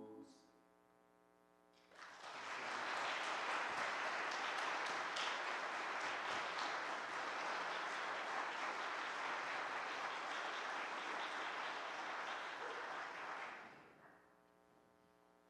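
A choir's last chord dies away at the very start, then after a short hush an audience breaks into applause about two seconds in. The clapping holds steady for about twelve seconds and fades out near the end.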